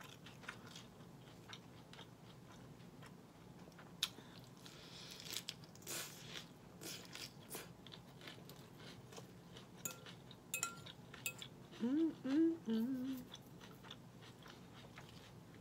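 Close-up chewing and crunching of Caesar salad with crisp romaine lettuce, wet crackly mouth sounds coming in uneven bursts, with a few clicks of a metal fork in a glass bowl. About twelve seconds in there is a short hummed 'mm' of enjoyment.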